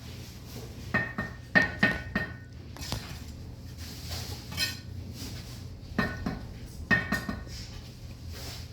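Sharp metallic clinks in two quick clusters of about five strikes each, every strike ringing briefly at the same high pitch, over a steady low hum.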